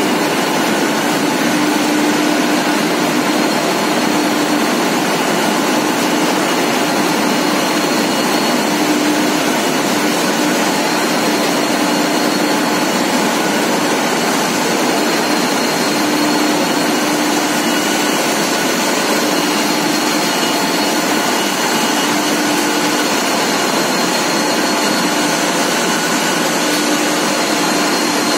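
Hot steel rolling mill running: steady, loud machinery noise from the roll stands and their drives as red-hot bar is rolled, with a hum that comes and goes and a faint high whine.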